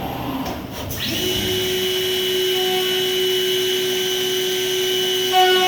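CNC corner-cleaning machine for PVC window frames: a motor spins up about a second in and runs with a steady whine, briefly louder near the end.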